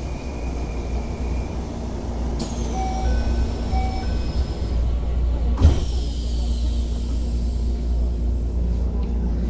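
Keisei 3000 series commuter train's doors closing at a stop: a short door chime sounds twice, then the sliding doors shut with a single loud thud about halfway through, over the steady low hum of the stationary train.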